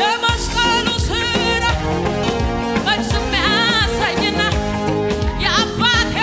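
A woman singing a worship song into a microphone with wavering, held notes, accompanied by a Yamaha electronic keyboard and a steady beat.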